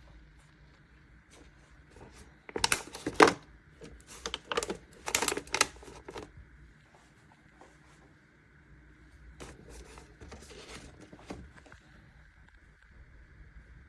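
Plastic clatter and knocks from handling the mini fridge's removable shelf and a water bottle. There is a loud run of clicks from about three to six seconds in, and fainter ones around ten seconds in.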